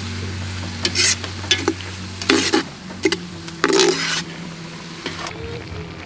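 A cooking utensil stirring and scraping through goat stew in a pot, about six strokes, over a faint sizzle.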